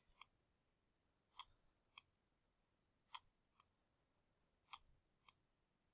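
Faint, sharp computer mouse button clicks, seven in all, mostly in pairs about half a second apart: the button pressed and released for each stroke of on-screen handwriting.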